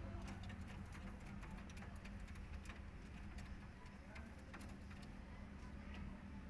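Quiet background: a steady low hum with scattered faint ticks and clicks.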